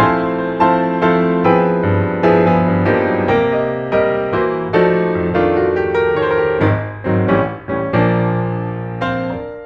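Piano music: chords struck at a steady, gentle pace, with a last chord left ringing and fading out near the end.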